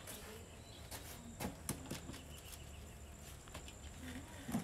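Light clicks and knocks from an aluminium telescopic ladder being carried and set against a wall, the loudest knock near the end, over a faint steady high chirring of insects.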